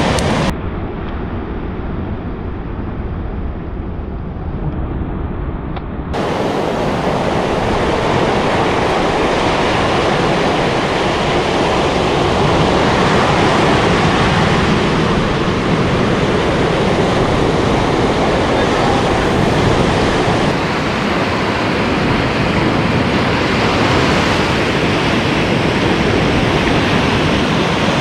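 Surf breaking and washing up a sandy beach, mixed with wind on the microphone. The sound is duller for the first few seconds, then opens up into a full, steady wash.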